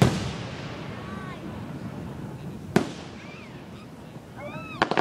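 Aerial fireworks: a sharp bang at the start fading into a crackle, a second single bang nearly three seconds in, and a rapid string of cracks breaking out at the very end.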